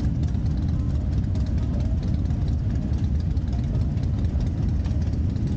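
Harley-Davidson V-twin motorcycle engines idling steadily: a Street Glide close by, with a group of bikes waiting behind it.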